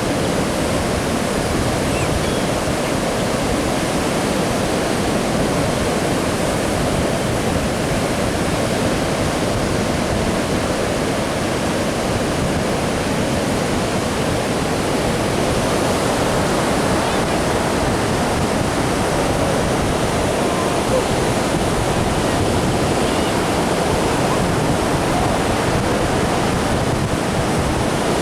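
Steady rushing noise at an even level, spread across low and high pitches, with no distinct bird calls standing out.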